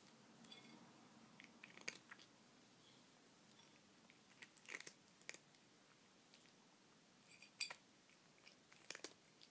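Cat eating Sheba Oral Care dry kibble: scattered quiet crunches and clicks of chewing, spaced irregularly, some in quick clusters.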